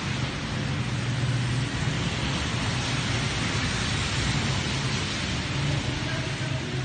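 Steady rushing swish of floodwater with a low engine hum underneath: a vehicle moving slowly through water on a flooded road.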